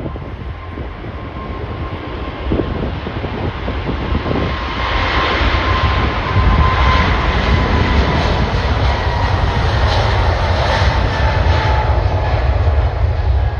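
Jet airliner's engines passing close by, growing louder to a steady peak about halfway through, with a deep rumble and an engine whine that slowly falls in pitch.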